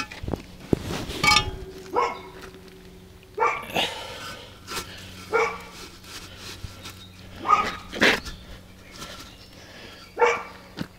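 A dog barking, single sharp barks every second or two at an irregular pace, with a dull knock about a second in.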